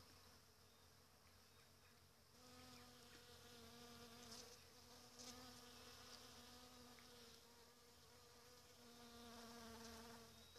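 Honeybee buzzing at apricot blossoms: a faint, steady wing hum that comes in about two seconds in, eases off, and grows louder again near the end.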